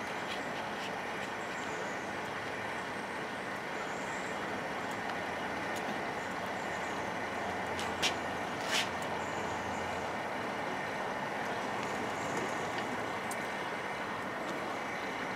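Steady mechanical whir of a milling machine running, with two short sharp clicks about eight seconds in.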